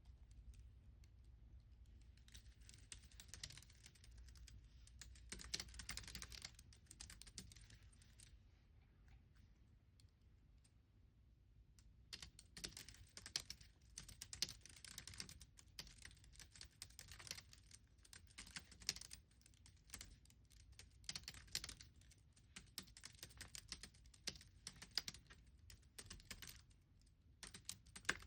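Quiet typing on a computer keyboard: rapid runs of key clicks, a pause of a few seconds near the middle, then steady typing again.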